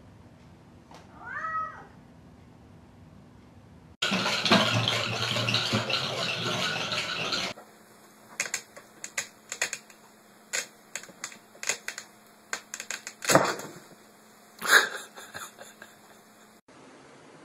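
A domestic cat meows once, briefly. After a few seconds of loud hissing noise comes a long string of irregular clicks and taps, with two louder knocks near the end, as a cat moves about in a storage box.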